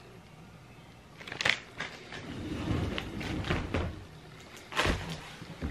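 Handling noise as things are moved and set down: a few light clicks, low rubbing and shuffling, then a single heavier knock near the end.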